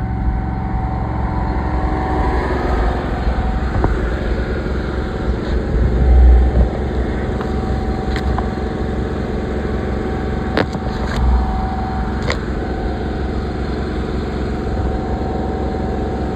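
High-pressure drain jetting unit's engine running steadily, turned up to full pressure while the hose jets into a flooded culvert chamber. A few sharp clicks come through over the middle stretch.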